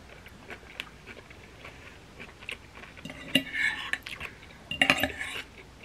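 Metal fork scraping and clinking against a plate while scooping up saucy noodles: small clicks throughout, with two louder bouts of scraping about three and five seconds in.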